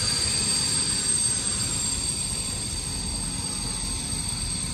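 Steady hum and high-pitched whine of a passenger train standing at a station, heard from inside the corridor of a couchette car.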